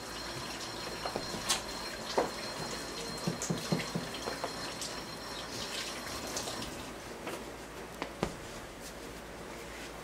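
Fingers rubbing and smearing wet oil paint across a canvas: a soft, wet smudging with scattered small taps and knocks.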